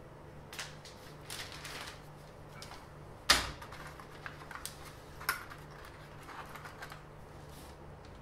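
Handling noises of a flexible ruler and paper on a workbench: paper rustling and light taps, with one sharp knock about three seconds in and a smaller one about two seconds later.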